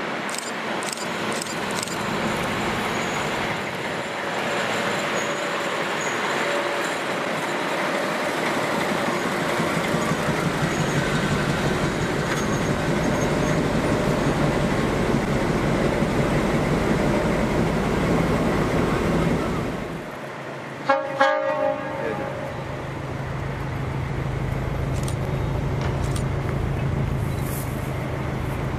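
SU46 diesel locomotive shunting, its engine and running gear making a steady, loud, noisy sound. About 21 seconds in the locomotive's horn gives a short toot. After that the diesel engine runs on with a steady low drone.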